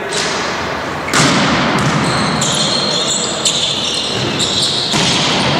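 Volleyball being hit hard several times during a rally, sharp slaps of hand on ball, the loudest about a second in, echoing in a large sports hall, with players' voices and high squeaks over the noise of the hall.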